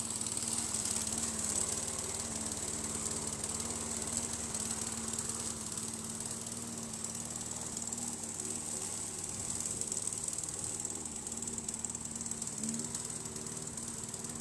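Lawn mower running steadily as it is pushed across the grass, an even motor hum with a faint rattle.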